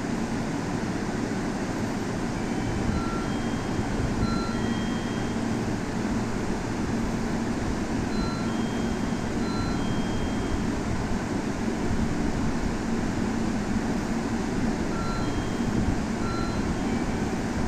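JR Central 313 series electric train standing at the platform with its equipment running, giving a steady hum. A short pattern of high electronic beeps repeats every six seconds or so over it.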